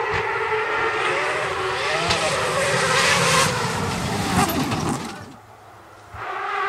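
Mazda-engined Peugeot 205 rally car running hard as it passes close by, its engine note rising and falling with the throttle. About five seconds in the engine sound drops away for about a second, then an engine is heard again, approaching.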